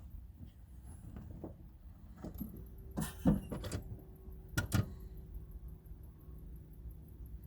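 Car keys jangling and several sharp clicks and knocks, the loudest about three seconds and just under five seconds in, as the Opel Astra H is readied to start; a faint steady hum sets in a few seconds in. The engine is not yet running.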